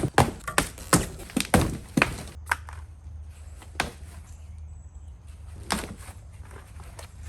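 Packaging being pulled and snapped off a boxed e-bike: a quick run of sharp knocks and snaps in the first two seconds or so, then a couple of single ones.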